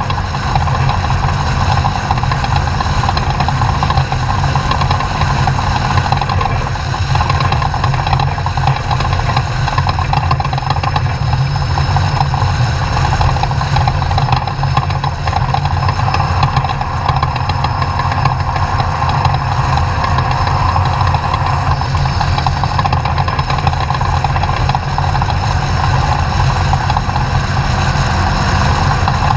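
Class 2000 off-road race truck's engine running steadily and loudly, with no distinct revs or breaks.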